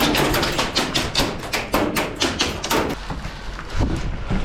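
Airsoft gunfire: a fast, irregular string of sharp snapping shots and BB impacts, several a second, thinning out after about three seconds.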